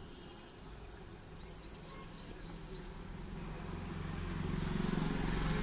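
Low rumble of a motor vehicle engine in the background, growing louder over the last two seconds, under a steady hiss.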